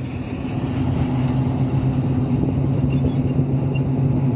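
Deutz-Fahr M3580 combine harvester's diesel engine running close by as the machine turns, a steady drone that grows a little louder about a second in.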